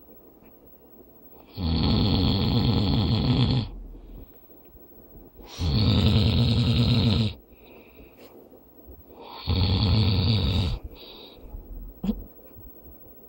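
A man snoring loudly in his sleep, like a little pig: three long, rough snores about four seconds apart, each lasting one and a half to two seconds, with a faint short snore just after the last.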